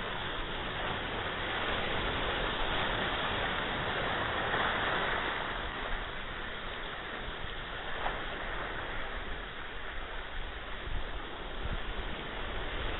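Ocean waves breaking and washing in, a continuous rush that swells for a few seconds near the start and then eases.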